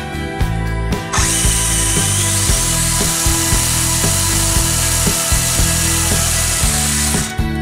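Brushless electric motor of an RC snowmobile spinning its long rubber track freely with the rear held off the ground: a loud, even whir that starts about a second in and cuts off shortly before the end. Background music plays underneath.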